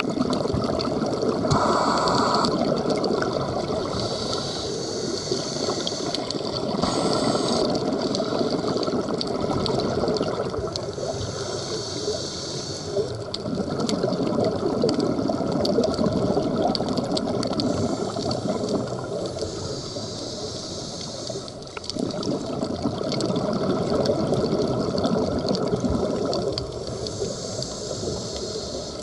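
Underwater sound of a scuba dive: a continuous rush and gurgle of water and bubbles from the diver's regulator, swelling and easing every few seconds.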